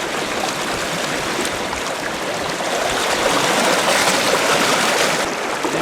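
Rushing water of the swollen Padma River in flood, a steady loud rush that swells a little about three seconds in and eases off near the end.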